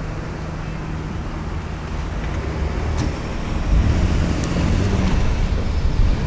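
Road traffic: a car driving past close by, its tyre and engine noise building over the second half. A few faint clicks sit on top.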